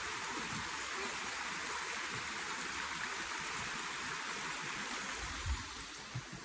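Creek water rushing and splashing over a low rock ledge in a small cascade, a steady hiss. About five and a half seconds in there is a low thump, and the rush grows a little fainter.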